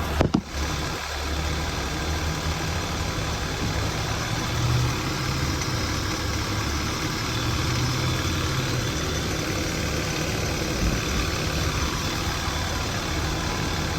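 2002 Acura MDX's 3.5-litre V6 idling steadily, with a brief click just after the start.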